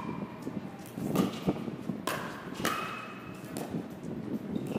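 Pickleball paddles striking the hollow plastic ball in a rally: a series of sharp pops, roughly one a second, some with a brief ringing ping.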